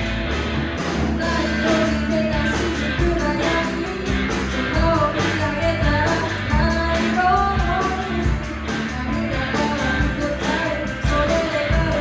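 A live rock band playing electric guitars and a drum kit, with a woman's singing voice coming in over it a few seconds in.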